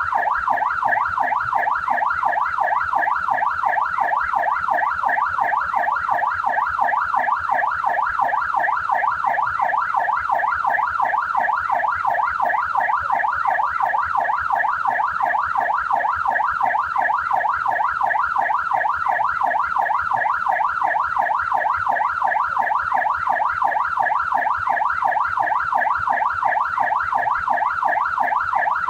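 Australian police car siren sounding continuously in a fast yelp, its pitch sweeping rapidly up and down several times a second at an even level.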